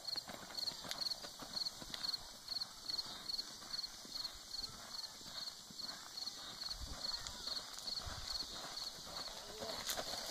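Horse loping (cantering) on a dirt and gravel arena: a steady, rhythmic run of hoofbeats on loose footing.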